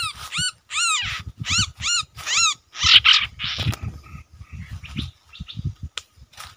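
A bird calling over and over: about eight quick, ringing rise-and-fall notes in the first two and a half seconds, then two harsher rasping calls and fainter scattered notes. Low thuds and rustling from handling run underneath.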